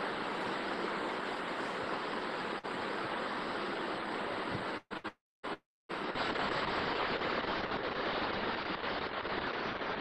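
Steady background hiss from an open microphone on a video call, with no other sound. About five seconds in it cuts out briefly a couple of times, then goes silent for about half a second before the hiss returns.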